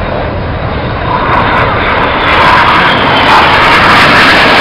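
Red Arrows' BAE Hawk T1 jets flying past in formation: rushing jet engine noise that grows louder from about a second in.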